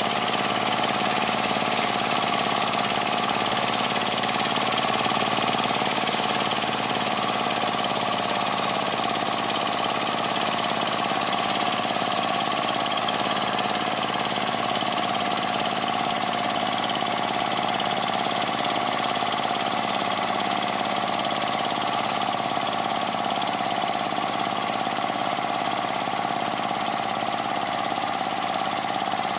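Chinese D30 single-cylinder diesel engine of a paddy water-channel cutting machine running steadily under load as it churns through a flooded rice field.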